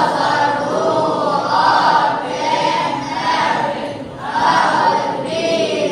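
A group of voices singing or chanting together in unison, choir-like, in phrases of a second or two with short breaks between them.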